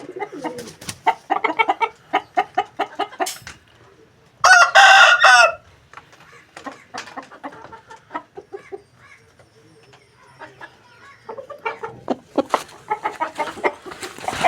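Aseel rooster crowing once, a loud call of about a second, about four seconds in, with rapid runs of chicken clucking before and after it.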